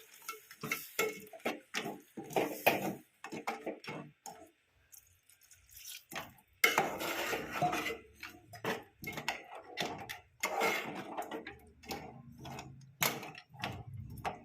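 Spoon clinking and scraping against a cooking pan as the crabs in their masala are stirred: a run of quick taps and knocks, a short pause about five seconds in, then busier clatter.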